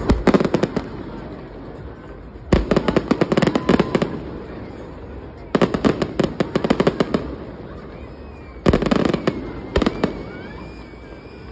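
Fireworks going off in salvos of rapid crackling bangs: four clusters, each about a second long, spaced roughly three seconds apart.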